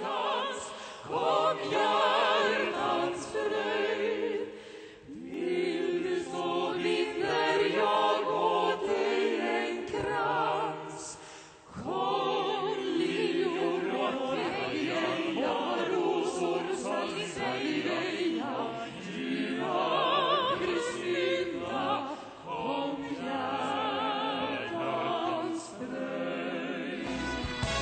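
Choir singing with held, wavering notes. Near the end it gives way to instrumental music with a strong bass.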